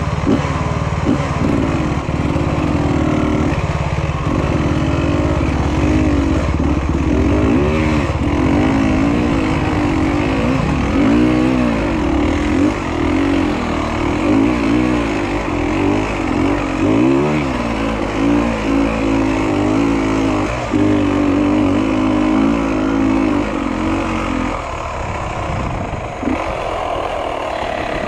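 Off-road motorcycle engine running close by, revved up and down again and again in short swells over a steady low note, as on a rocky hill climb. The revving stops a few seconds before the end.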